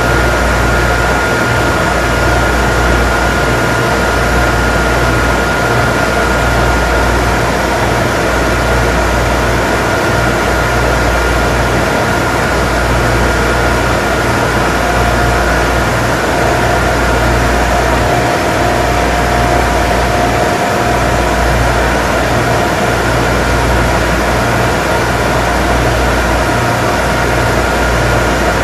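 Barge engine room: loud, steady machinery noise with a deep engine rumble and steady whining tones. A higher whine fades out about halfway through as a lower one comes in.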